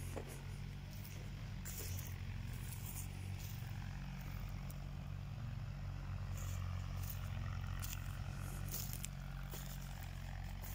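A steady low engine drone from machinery running in the background, with scattered light crunches and rustles of footsteps over dry stalks and soil.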